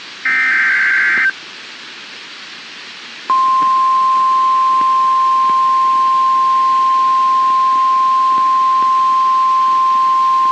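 NOAA Weather Radio alert signals: a one-second burst of buzzy digital data tones (the last SAME header burst), then a pause of hiss. About three seconds in, the long, steady single-pitch warning alarm tone starts, announcing a warning broadcast that follows.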